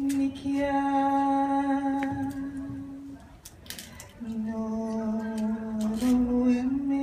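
A single voice singing long held notes without words: one steady note for about three seconds, then after a short pause a lower note that steps up near the end.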